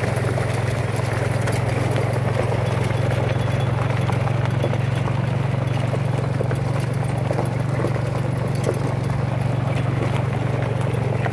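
Engine of a moving ATV train running steadily at a constant low drone, with light rattling of the ride.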